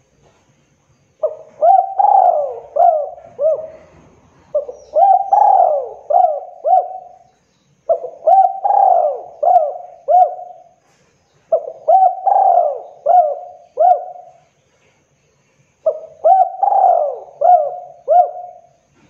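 Spotted dove cooing: five repeated phrases, each a run of four or five short, hooked coos, one phrase every three to four seconds.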